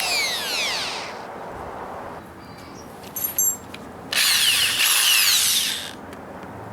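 Handheld power tool motor with a high whine, spinning down with falling pitch in the first second. A couple of clicks follow, then a second burst of about two seconds starts about four seconds in and winds down the same way.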